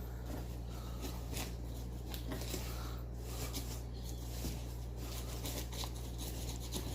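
Faint scratchy strokes and dabs of paintbrushes on a paper-covered volcano model, over a steady low hum.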